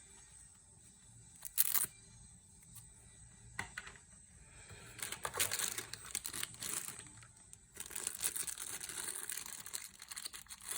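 Keyboard packaging being handled and opened: a short sharp rip about one and a half seconds in, a click, then two longer stretches of crinkling, rustling packaging.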